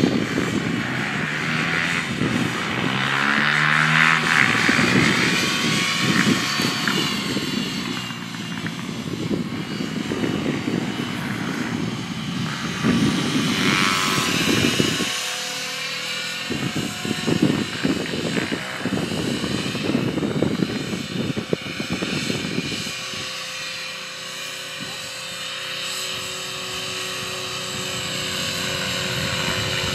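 Align T-Rex 500 electric RC helicopter in flight: a continuous rotor and motor whine that shifts and glides in pitch as it manoeuvres, over an uneven low rumble.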